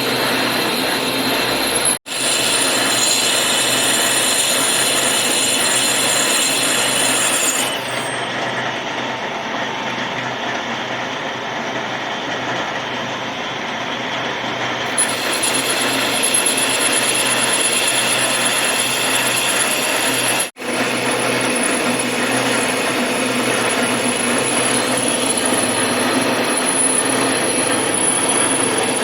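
Power tool running steadily while machining metal, a continuous noise with a few high whining tones, broken twice by brief cuts.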